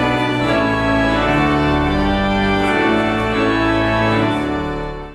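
Church organ playing a hymn in sustained, changing chords; the sound cuts off suddenly near the end.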